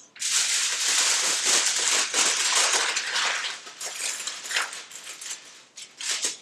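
Aluminium foil crinkling as it is folded and wrapped around a potato: a dense run of crackling for about the first three seconds, then scattered crinkles.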